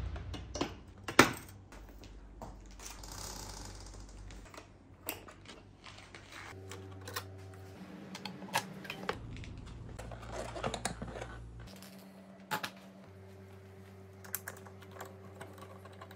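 Scattered light clicks and taps of hand tools and fittings being worked on a motorcycle, with one louder click about a second in, over a low hum that cuts in and out.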